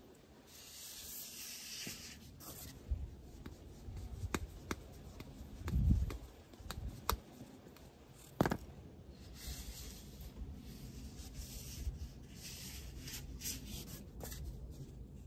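Flip-flops slapping against the soles of bare feet and scuffing on patio tiles: irregular soft slaps and clicks with stretches of scraping, the loudest thump about six seconds in.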